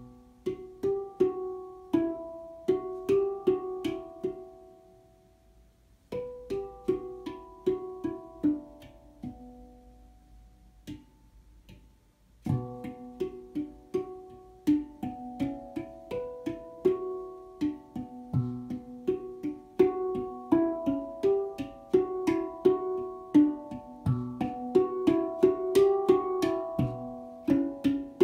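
Handpan played with the hands: struck notes ringing and overlapping in slow melodic phrases, with a deep low note now and then. The playing thins out and pauses twice, then runs on denser from a little before halfway.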